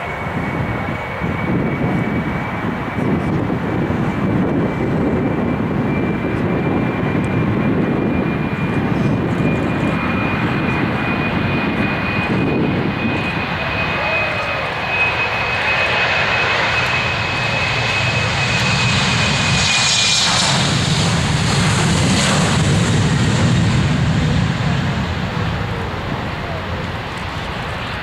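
Airliner engines running: a steady high whine that climbs slightly over about twenty seconds under a low rumble. About twenty seconds in the whine stops, and the rumble and a hissing rush swell to their loudest, then fade near the end.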